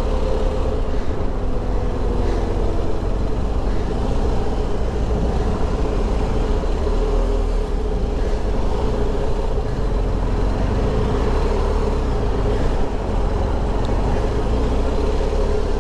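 Wind rushing over the microphone of a moving motorcycle, over the steady engine note of a BMW R1250GS boxer twin being ridden along the road.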